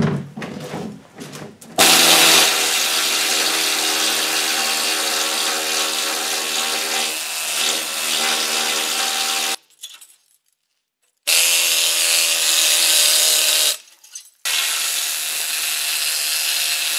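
Pneumatic needle scaler hammering rust and rotted metal out of a dump truck box's steel upright: a loud, steady buzzing rattle. It runs in three stretches, the first about eight seconds long, with brief stops between.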